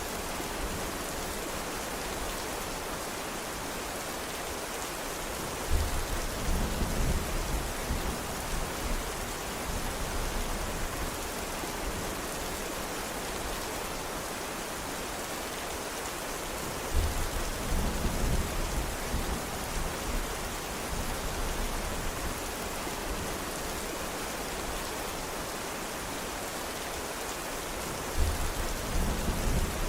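Steady, dense rain hiss. Deep rumbles of thunder break in suddenly three times, about six seconds in, midway and near the end, each rolling on for a few seconds.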